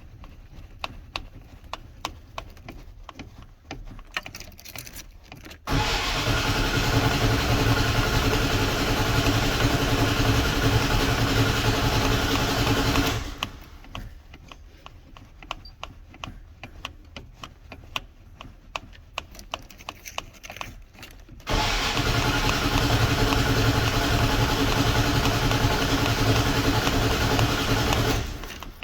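Dodge engine being cranked by its starter in two long tries of about seven seconds each, hard to start. Between the tries there is a steady, regular ticking.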